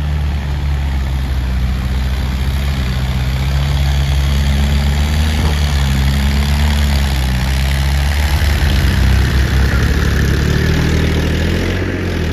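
Diesel farm tractor engines, a Mahindra Arjun 555 and a Massey Ferguson 7250, running steadily and loud at working speed. The two are hitched together with a line, pulling against each other in a tug of war.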